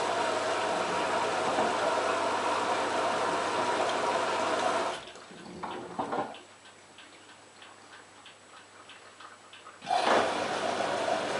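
LG F1443KG washing machine mid-wash with water rushing through it as a loud steady hiss carrying a held tone. The hiss stops about five seconds in, leaving a few knocks and faint ticking from the drum, then starts again near the end.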